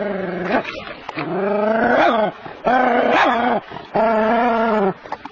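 Small terrier giving about four long, drawn-out barks in a row, some rising in pitch, while confronting a large snake in the water.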